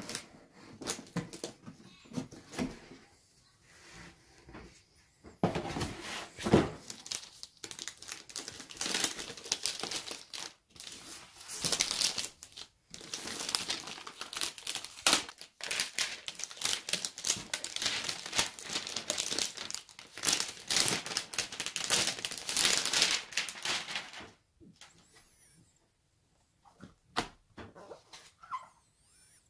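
Laptop packaging crinkling and rustling while it is handled and unwrapped, a dense run of crackling from about five seconds in to about twenty-four seconds, then quieter with a few sharp clicks and taps near the end.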